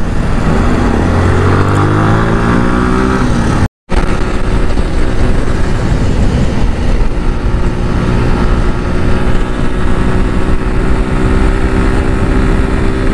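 Bajaj Pulsar NS200's single-cylinder engine accelerating hard, its pitch rising for about four seconds. The sound cuts out for a moment, then the engine runs steadily at around 105–110 km/h under heavy wind noise on the microphone.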